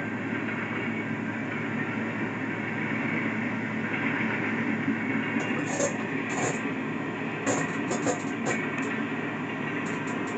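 Coal train's hopper cars rolling past at a grade crossing, a steady rumble with a low hum, and several brief high squeaks from about halfway through.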